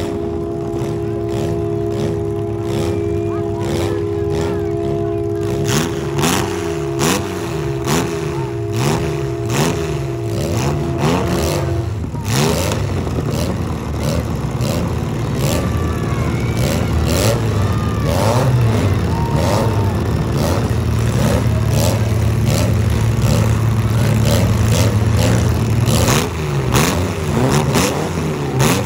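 Demolition derby small cars' engines revving up and down over and over, with scattered sharp knocks and clanks of metal. A steady held tone sounds under them and cuts off suddenly about twelve seconds in.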